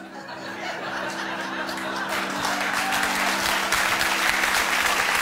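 Accordion holding sustained chords, moving to a new chord twice, while audience applause builds and grows steadily louder.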